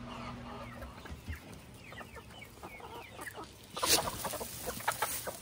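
A flock of chickens, hens and young birds, clucking and chirping in many short, overlapping calls. A brief louder burst of noise comes a little under four seconds in.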